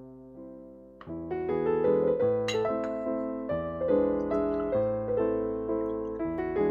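Background keyboard music in a piano sound: a few held notes, then fuller chords and a moving melody from about a second in.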